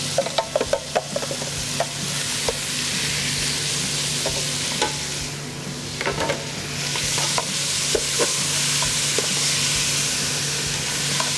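Chopped onion, celery and bell pepper sizzling in hot rendered bacon and sausage fat in an aluminium pot, stirred with metal tongs that clink against the pot. A quick run of clinks comes in the first second, then scattered clinks over the steady sizzle.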